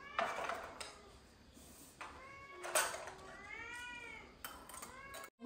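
A domestic cat meowing several times, the longest meow rising and falling about three and a half seconds in. A few sharp clicks are mixed in.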